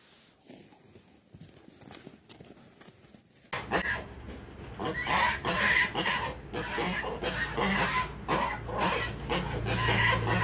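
Faint clicks, then from about three and a half seconds in a loud, busy run of animal calls over a steady low hum.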